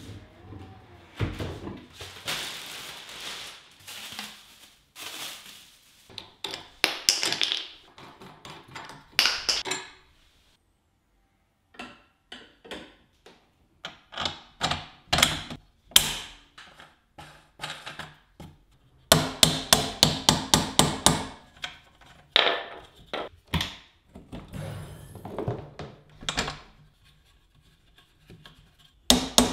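Cardboard and plastic rustling and scraping as a Greenworks garden cart is pulled out of its box. Then a string of sharp metal taps, clicks and knocks as the steel handle frame is fitted and bolted on with an Allen key, with a quick run of about a dozen clicks about two-thirds of the way through.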